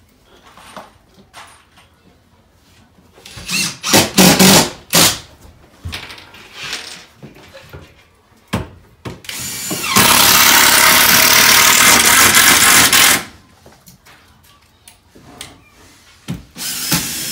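Cordless drill-driver driving screws into a kitchen wall-cabinet door hinge. It runs steadily for about three seconds, stops suddenly, and starts again near the end. Before that come a few short, loud knocks and bursts.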